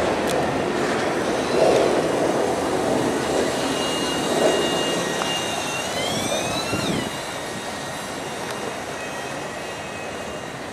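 Freight train of autorack cars rolling past on steel rails, the noise dropping away about seven seconds in as the last car goes by and recedes. A thin high squeal rises and breaks off just before the drop.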